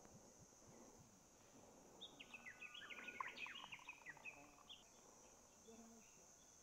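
Beer poured from a bottle into a glass mug: quiet splashing and gurgling starts about two seconds in and dies down to a soft trickle onto the foam about five seconds in. A faint, steady high insect drone sits underneath.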